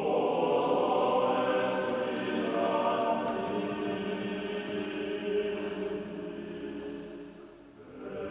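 Boys' choir with men's voices singing unaccompanied, a slow sustained choral phrase that swells in and gradually dies away. A new phrase enters near the end.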